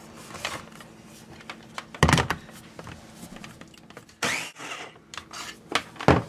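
Plastic parts of a small Ninja food chopper being handled and set down on the counter: a loud thump about two seconds in, a short noisy burst a little after four seconds, and a couple of sharp knocks near the end.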